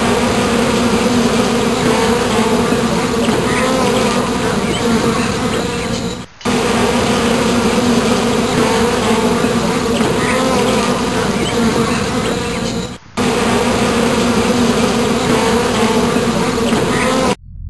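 Honeybees buzzing in large numbers around the entrances of their hives: a dense, steady hum with a low drone and its overtone. It breaks off briefly twice, about six and thirteen seconds in, and stops just before the end.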